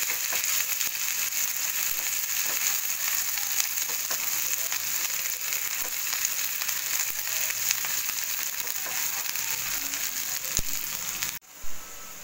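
Chopped onion frying in hot oil in a non-stick pan, a steady sizzle with light scrapes and ticks as a silicone spatula stirs it toward golden brown. The sizzle cuts off suddenly near the end.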